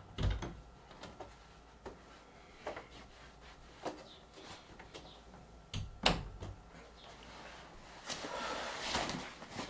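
Faint, scattered clicks and knocks, with a louder knock about six seconds in.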